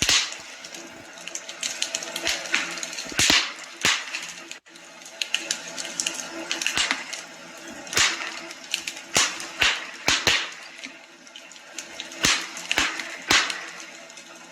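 Wood fire crackling in a fireplace, with irregular sharp pops and snaps at uneven intervals.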